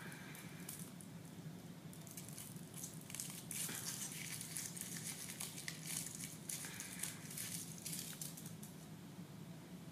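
Foil wrapper of a chocolate surprise egg crinkling as it is peeled off by hand: a faint run of quick crackles that gets busier a few seconds in and thins out near the end.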